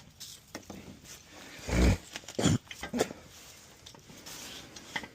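Handling knocks and clicks: a heavy thump about two seconds in, a second one half a second later, then a sharper click and a few lighter taps.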